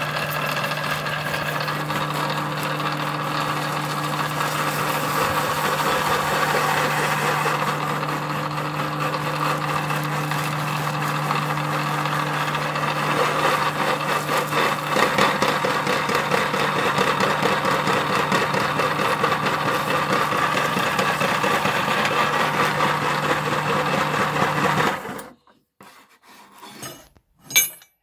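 Electric meat grinder running with a steady motor hum while grinding potato chips, a dense dry rasping, crunching noise. Near the end the motor cuts off suddenly, followed by a few short metallic clinks.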